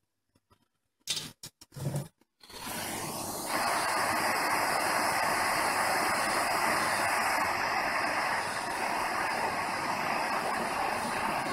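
Soldering torch flame hissing steadily as it heats a copper pipe joint for sweat-soldering. It comes in after a few short clicks and fills out about a second later.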